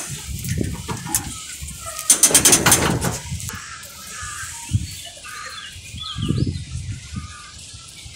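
Footsteps clattering over a metal pier gangway, loudest about two to three seconds in, with short bird calls and low thumps around them.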